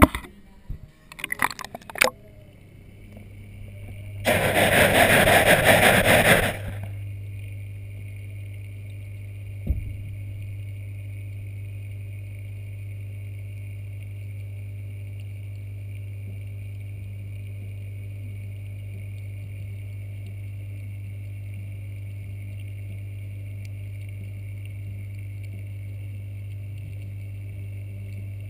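Knocks of a GoPro camera's plastic underwater housing being handled, then about two seconds of loud splashing and rushing noise as it goes into the aquarium water. After that, a steady low hum of the aquarium's filter pump picked up through the water, with one dull thump about ten seconds in.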